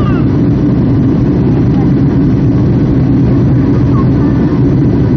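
Steady loud roar of a Boeing 757-200's jet engines and rushing air, heard from inside the passenger cabin, the deep rumble strongest.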